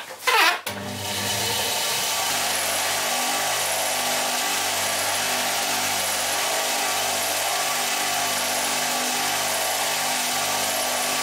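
Bench grinder motor switched on under a second in and running steadily, its fabric buffing wheel used to polish a small metal part. A brief loud noise comes just before it starts.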